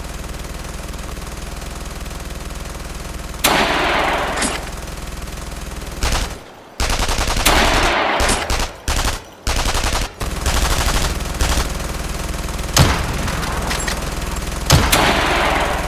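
War-film gunfire sound effects: continuous rapid machine-gun fire with louder single shots ringing out over it, about three and a half seconds in and twice near the end. The firing cuts out abruptly for brief moments in the middle.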